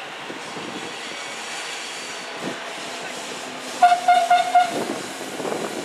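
Steady rumble of a passing train running along the line, with a short train horn blast of about a second, about four seconds in.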